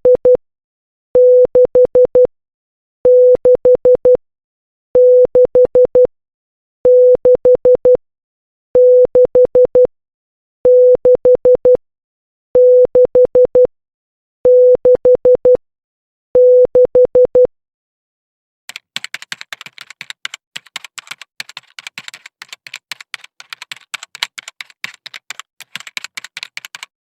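Morse code for the digit six, one dash and four dots, beeped as a steady single-pitch tone and repeated about nine times, one group every two seconds or so. From about nineteen seconds in, it gives way to rapid, irregular clicking.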